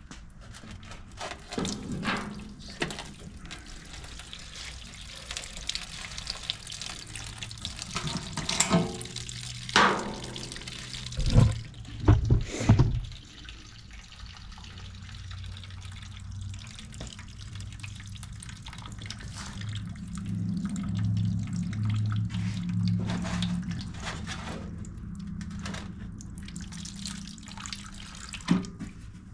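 Two-stroke fuel mix running and dripping out of a small generator's fuel tank into a container, interrupted by several knocks and clunks as the generator and a wooden board are handled, the loudest about twelve seconds in.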